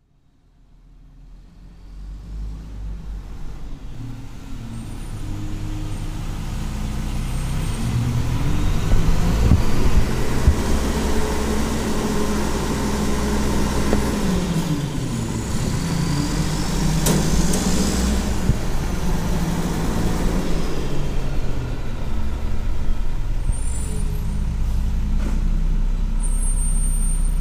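Opening of an experimental ambient track, fading in over the first several seconds to a dense, rumbling noise drone. Low tones in the drone slide down and back up near the middle.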